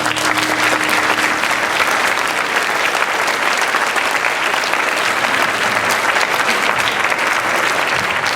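Large audience of students and guests applauding steadily, dense clapping with no break.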